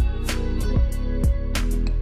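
Background music with a steady beat: a low kick drum about twice a second under sustained instrumental chords and sharp cymbal hits.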